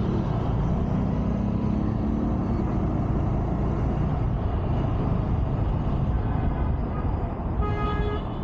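Motorcycle running on the road with heavy wind and road noise, its engine note rising over the first few seconds as it speeds up. A vehicle horn starts sounding near the end.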